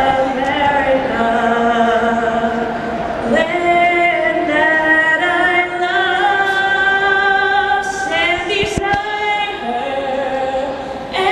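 A woman singing unaccompanied over a ballpark's public-address system, with long held notes.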